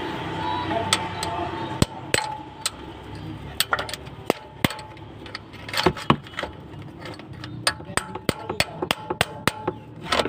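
Hand tools knocking and tapping on metal: irregular sharp strikes, some in quick runs, growing more frequent in the second half, over a low steady hum.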